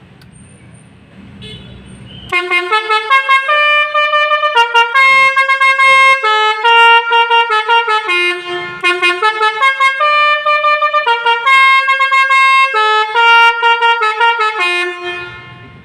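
Bus telolet horn of the 'Pakistan' (basuri) type playing a melodic tune, starting about two seconds in: a loud run of horn notes at changing pitches, some held and some in quick staccato bursts, dying away near the end.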